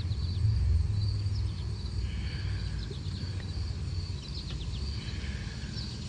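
Outdoor background: a steady low rumble, a thin high insect trill that holds steady throughout, and a few short bird chirps.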